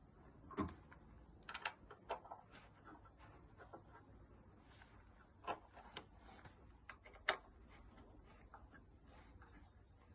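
Faint, irregular clicks and knocks of hand tools on the flood barrier's fittings as its grub screws are tightened, about a dozen at uneven intervals, the sharpest near the start and about seven seconds in.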